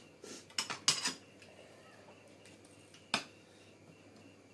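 Eating sounds at a meal table: a few short clicks and smacks, several close together in the first second and one more about three seconds in, from tableware and mouths.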